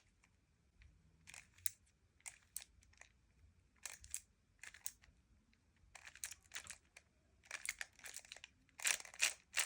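Top layer of a 3x3 Rubik's speedcube flicked round with the fingers in U2 turns, index finger then middle finger: quick plastic clicks and clacks in short clusters about every second.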